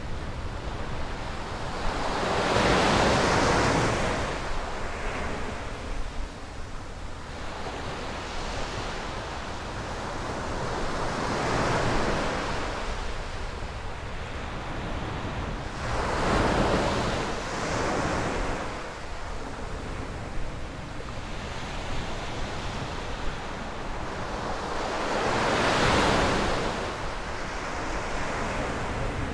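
Sea surf breaking on a sandy beach, the wash swelling and fading with each wave every several seconds, loudest about three seconds in and again near the end. Wind rumbles steadily on the microphone underneath.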